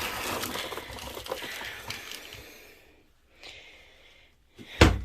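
Crackling and light clattering of cat food being got ready, fading out after about three seconds, then a sharp knock near the end.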